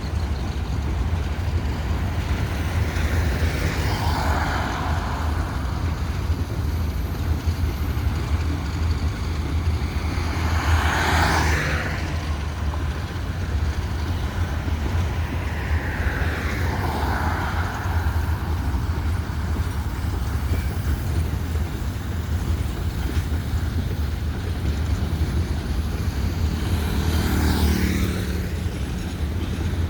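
Diesel locomotives, an EMD GR-12 and an ALCo RSD-16, running with a steady deep engine rumble as they haul a train of empty grain hoppers out. Four times a rushing noise swells and fades over a second or two.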